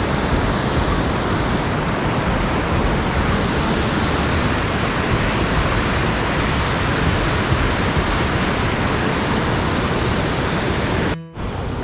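Waterfall and whitewater rapids rushing: a steady, dense wash of water noise that cuts out for a moment near the end.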